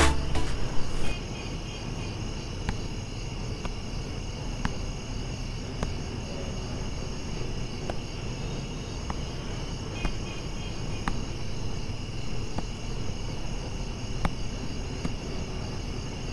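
Night-time insect chorus: crickets chirring steadily and high-pitched, with a few faint clicks scattered through.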